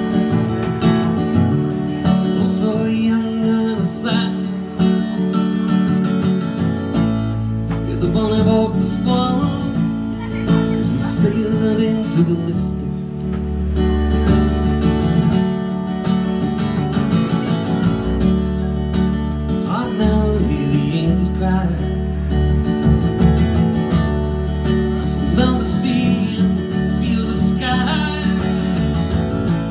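Live acoustic guitar strummed over electric bass notes, with singing.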